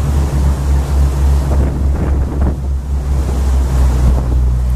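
A river tour boat's engine running with a steady low hum, mixed with wind buffeting the microphone and water rushing past the hull.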